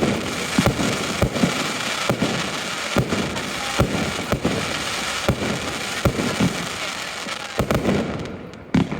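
Fireworks display: a rapid run of sharp bangs over continuous crackling, thinning out near the end.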